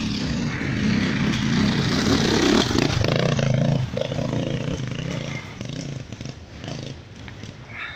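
Enduro motorcycle engine passing close by under throttle, loudest over the first few seconds, then fading as the bike rides away up the trail.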